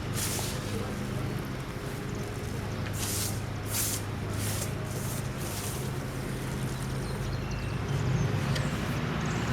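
Steady low engine hum of background traffic, growing a little louder near the end, with a few short hissing rustles over it.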